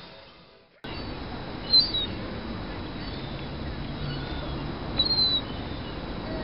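Young gull giving two short high-pitched calls, one about two seconds in and one about five seconds in, over a steady background noise.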